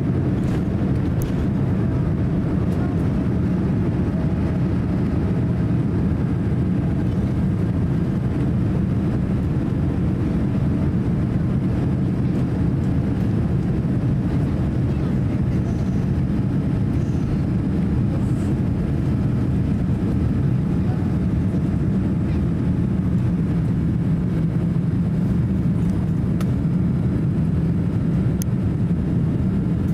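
Cabin noise of a Boeing 787-8 climbing out just after takeoff: its twin turbofan engines and the rushing air make a steady low rumble. A faint higher whine fades away in the first several seconds.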